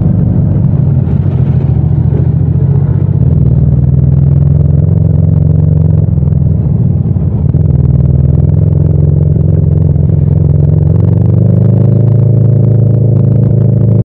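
Yamaha MT-07's 689 cc parallel-twin engine running steadily under way, with no wind noise over it. Its note dips briefly about halfway and lifts slightly near the end.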